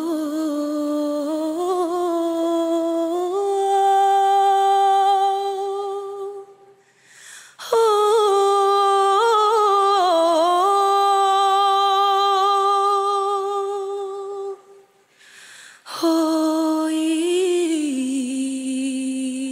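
A girl's solo singing voice holding long drawn-out notes in three phrases, the first stepping upward in pitch, with two short breaks for breath, about a third and about four-fifths of the way through.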